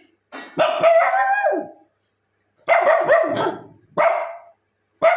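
A dog barking loudly four times in long, drawn-out, howl-like barks. The first two last over a second each, and a short bark and the start of another come near the end.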